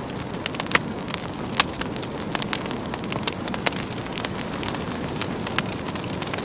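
A pyre fire burning, with a steady rushing noise and frequent irregular sharp crackles and pops.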